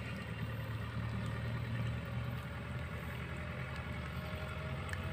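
A steady, low engine hum, as of a motor idling, over faint background noise.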